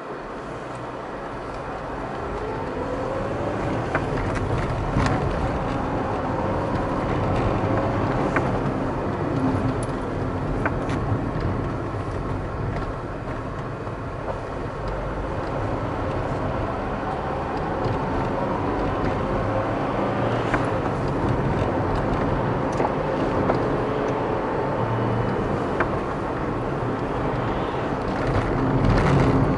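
A car driving on city streets: steady engine and tyre noise with a low rumble. The engine note climbs in pitch as the car speeds up, around two seconds in and again past the halfway point, with a few light knocks from the road surface.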